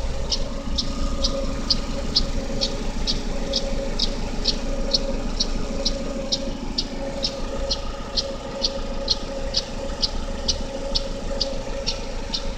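GM E-TEC II 1.5-litre inline-four DOHC engine (F15D3) idling cold, with a steady, sharp ticking about two and a half times a second over the engine's hum. The tick is a cold-idle noise, loudest between the exhaust camshaft pulley and the power steering pump, that goes away once the engine has warmed up.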